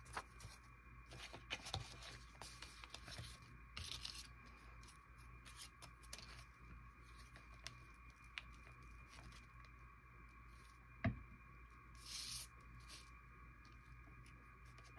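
Faint paper handling: sheets and scraps of paper rustling and being torn in short bursts, with a single sharp tap about eleven seconds in.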